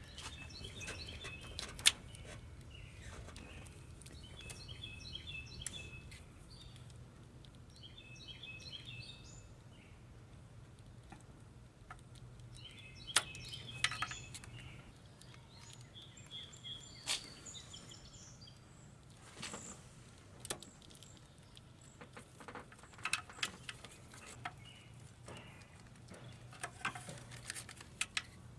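Songbirds chirping in short repeated phrases every few seconds, with scattered sharp clicks and knocks of hand work on the car, over a low steady hum.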